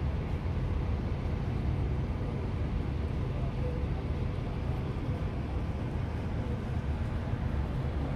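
Wind buffeting the microphone: a steady, unbroken low rumble.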